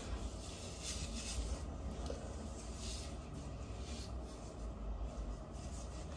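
Gloved hands rubbing thick hair-bleach paste into a section of hair: faint, irregular rubbing and rustling strokes.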